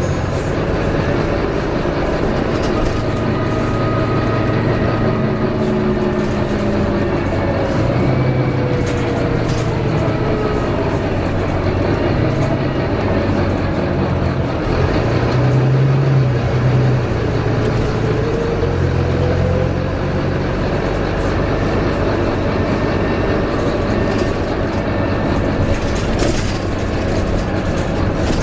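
Volvo B9TL double-deck bus heard from inside the passenger saloon, its six-cylinder diesel and automatic gearbox running under way. The low engine note shifts several times, and a fainter whine falls and then rises again in pitch.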